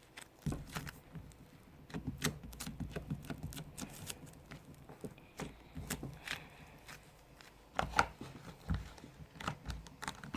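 Hands squeezing and kneading slime: irregular small sticky clicks and pops over low handling noise.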